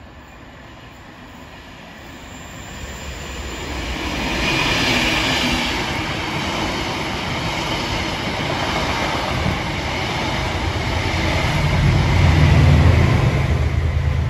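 Chiltern Railways passenger train passing at speed. Its wheel-and-rail noise builds to a hissing rush about four seconds in as the driving van trailer and coaches go by. Near the end the Class 68 diesel-electric locomotive propelling at the rear passes, and its engine adds a loud low rumble.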